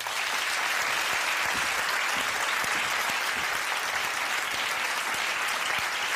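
Studio audience applauding, a dense, even clapping that starts suddenly and holds steady.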